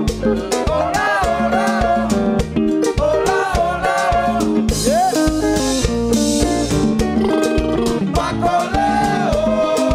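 Live band music: a man sings lead into a microphone over a drum kit, bass and guitar, with a cymbal wash about halfway through.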